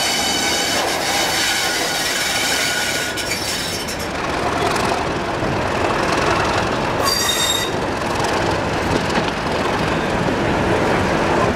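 Train wheels squealing high on the rails for about the first three seconds, then the rumble and rattle of the coaches rolling slowly into the platform, with a second brief squeal about seven seconds in.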